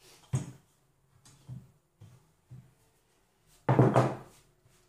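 Wooden rolling pin knocking on a wooden board as dough is rolled out: a sharp knock just after the start and a few softer ones. About three and a half seconds in, a louder, longer clatter as the pin is set down on the board.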